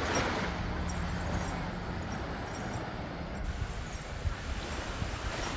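Beach ambience: a steady rushing noise of wind and surf, with a faint low hum for about the first two seconds.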